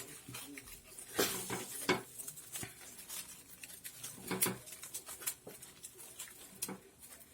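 Palm-leaf strips being handled and worked into a woven figure: irregular rustling with light clicks and crackles.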